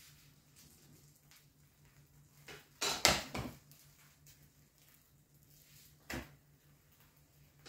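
A crêpe pan knocking and clattering against the stovetop as the crêpe is handled and turned: a quick cluster of knocks about three seconds in and a single sharp knock about six seconds in, over a faint steady hum.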